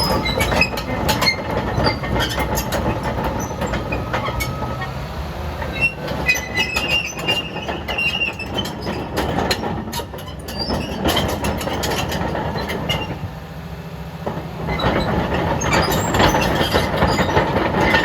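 Komatsu D65PX-17 crawler bulldozer on the move: the diesel engine runs under a constant clatter and clanking of the steel tracks. A high squeal from the track running gear comes in for about two seconds some six seconds in. The clatter eases briefly about two-thirds of the way through, then picks up again.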